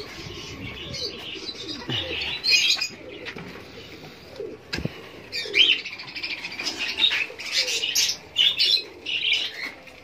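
A flock of budgerigars chirping in quick, busy bursts, with wings fluttering, loudest in the second half.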